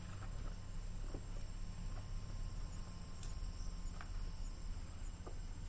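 Crickets chirping steadily in the night, over a low steady hum, with a few faint ticks scattered through.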